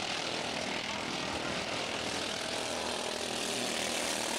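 Engines of several Mini Cup race cars running at racing speed around an oval track, a steady drone of overlapping engine notes.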